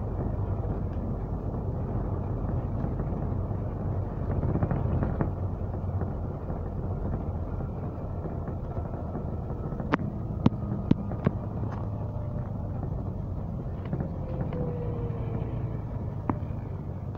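Engine and road rumble of a moving double-decker bus heard from inside the top deck, with a few sharp clicks or rattles about ten seconds in and a faint falling whine a little later.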